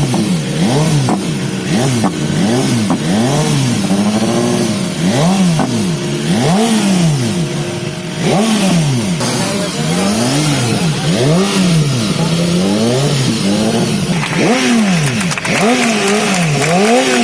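Motor vehicle engines revved in quick repeated throttle blips, the pitch rising and falling about once a second, with several engines overlapping.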